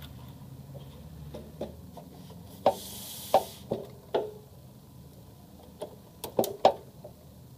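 Plastic clicks and knocks from an HP LaserJet CP1025 printer's top cover being handled and seated on the chassis: single sharp clicks spread through, a brief hiss about three seconds in, and a quick cluster of clicks near the end.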